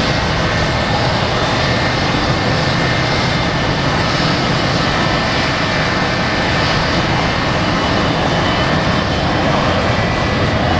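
McDonnell Douglas MD-88 jet airliner's rear-mounted Pratt & Whitney JT8D turbofans running at high power as it rolls down the runway: a steady, loud jet noise with a faint whine in it.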